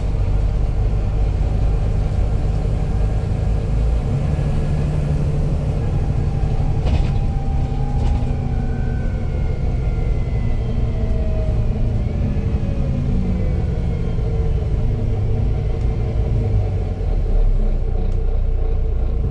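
Volvo B9 bus engine and drivetrain heard from inside the saloon while under way, a steady low drone that shifts in pitch as the bus pulls and changes gear. A faint whine glides up and down in pitch through the middle.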